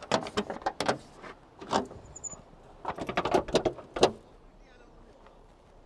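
Land Rover Series III bonnet, with its spare wheel mounted on top, being unlatched, lifted and propped open: a run of metal clicks and clanks from the catch, hinges and stay rod, ending in one louder knock about four seconds in.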